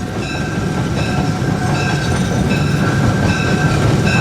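Diesel locomotive and train running: a steady low rumble that grows slightly louder, with short high ringing tones repeating about once a second.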